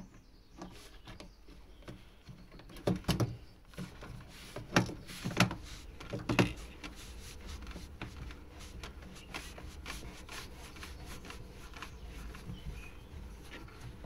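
A twin tub washer's drain hose and plastic fittings being handled and refitted by hand: a string of small clicks and rubbing, with several louder knocks between about three and six and a half seconds in.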